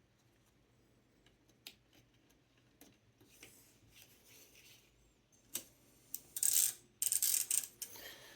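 Handling noise from a Corona 4 typewriter's ribbon spools and mechanism while the ribbon is threaded: a few light clicks, then from about six seconds in louder bouts of rubbing and scraping.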